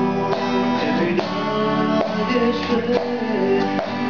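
Acoustic guitar played with strummed chords, the strings ringing on between strokes.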